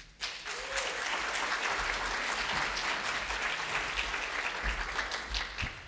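Audience applauding steadily for about five and a half seconds, dying away near the end.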